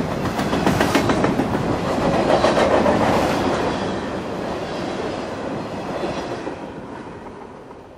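Freight train rolling past, its wheels clicking rhythmically over the rail joints, then fading away over the last couple of seconds as it moves off.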